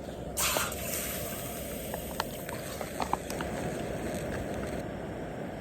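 Wood campfire burning: a short hiss about half a second in, then scattered sharp pops and crackles over a steady low rumble.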